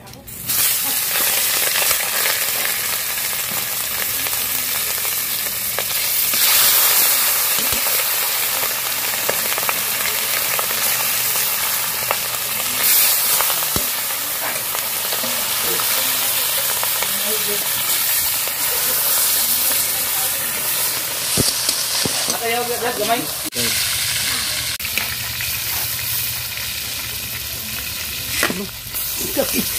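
Whole fish frying in hot oil in a wok, a loud, steady sizzle that surges up at the start as the fish goes into the oil. Now and then a metal spatula clicks and scrapes against the wok.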